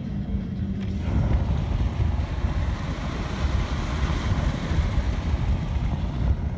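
Wind rushing past a moving car and buffeting the microphone, over the low rumble of the car on the road. The rush swells in about a second in and drops away near the end.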